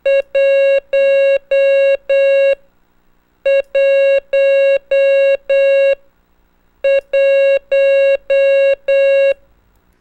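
Morse code practice tone sending the digit 1, dit dah dah dah dah, three times over with a short pause between repeats.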